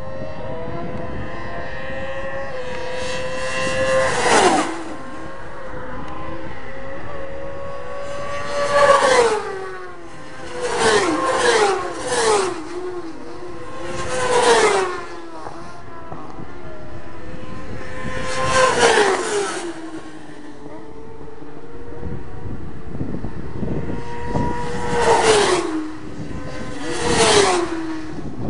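Racing motorbikes passing at speed one after another, about eight in all. Each engine note holds high as it approaches, then drops sharply as the bike goes by.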